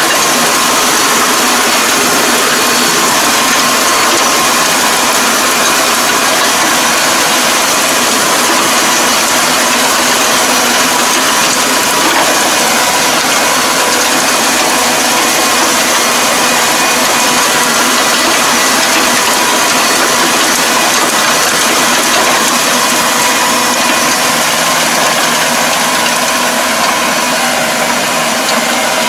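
Tractor engine running steadily under load while its rear rotary tiller churns through wet paddy mud, with a steady whine from the drive over the dense mechanical noise.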